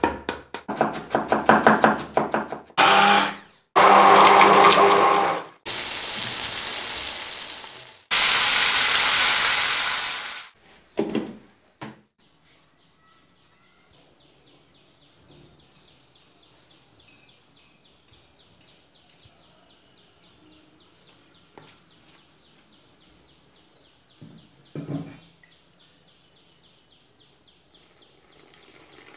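Rapid knife chopping on a wooden board, mincing raw meat, followed by an electric mixer grinder run in four bursts of two to three seconds each, the loudest part. After that it goes quiet apart from a faint, fast ticking.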